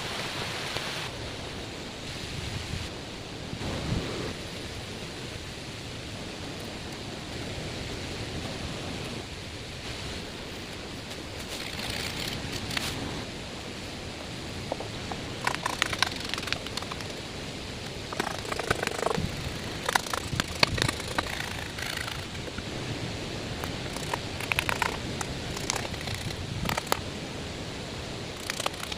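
Steady outdoor hiss with intermittent rustling and short snaps and clicks, which become frequent after about twelve seconds.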